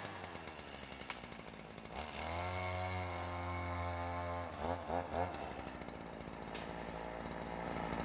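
Ryobi chainsaw running: it revs up about two seconds in and holds a steady high pitch, gives a few quick throttle blips around five seconds, then settles back to a lower steady speed.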